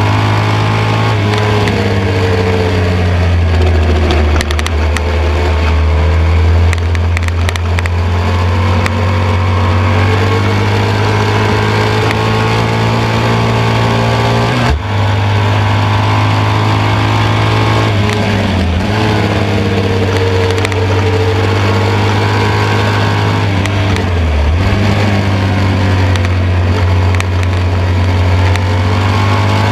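1972 BMW R75/5's air-cooled 750 cc boxer twin running hard under race conditions, heard from on board with wind rushing over the microphone. The steady engine note breaks briefly about halfway through and twice more later on.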